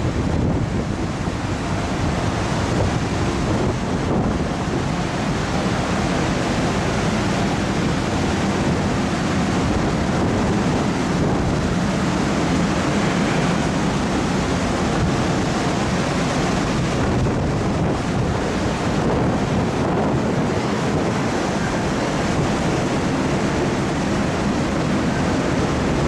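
Steady rush of wind and sea on a car ferry's outer deck while it is under way, with a constant low rumble beneath.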